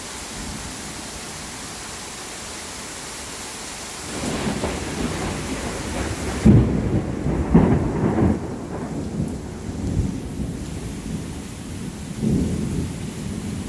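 Steady rain hiss, then thunder rolling in about four seconds in: a long low rumble with two loud cracks near the middle, dying away, and a shorter rumble near the end.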